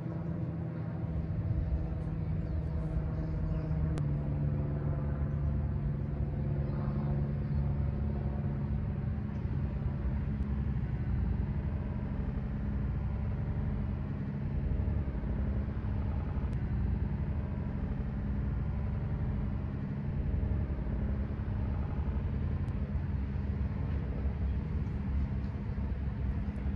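A steady, engine-like low rumble with a held hum, which drops to a lower pitch about four seconds in and then runs on evenly.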